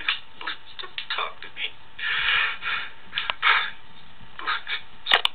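A young man's crying and broken, mumbled words from a webcam recording, played back over a screen's speakers and picked up by a second camera, in short irregular bursts. A sharp click about five seconds in.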